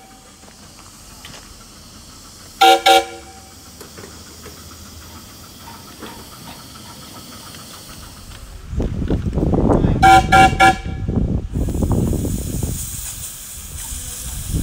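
Live-steam miniature locomotive's whistle giving two short toots about three seconds in, the signal to proceed forward. From about nine seconds the engine's steam hisses and chuffs loudly, and near ten seconds the whistle gives three short toots, the signal to back up.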